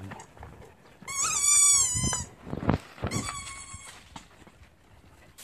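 Dog whining: a long, high, quavering whine about a second in, then a second, steadier whine about three seconds in, with a low knock between them.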